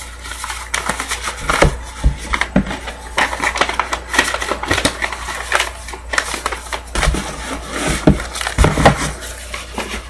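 Trading cards and paper envelopes being handled and shuffled on a tabletop: a dense, irregular run of rustles and small clicks.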